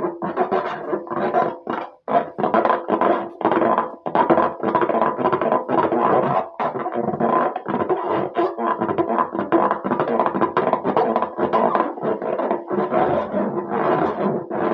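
Background music with quick, choppy notes.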